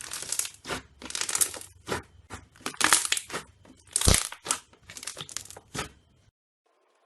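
Slime being squeezed and pressed by hand, giving a quick, irregular run of crunching, crackling pops that stops abruptly about six seconds in.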